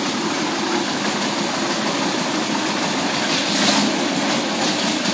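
A loud, steady rushing noise with a low hum in it, with a short brighter burst about three and a half seconds in, when the lidded wok is set down on the ground.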